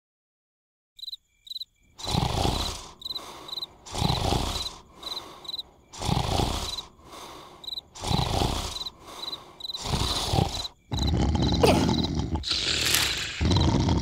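Cartoon larva snoring loudly: a rough snore about every two seconds with a softer breath between, over steady cricket chirping. From about eleven seconds in the sound turns louder and more continuous.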